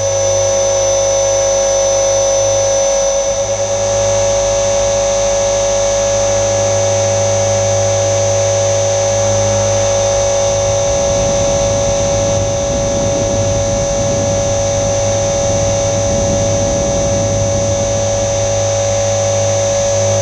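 Align T-Rex 470L electric RC helicopter in flight, heard from a camera mounted on its frame: the brushless motor and gear drive give a steady, loud whine of several fixed tones over the hum of the spinning rotor. A rougher rushing noise joins about halfway through and fades again.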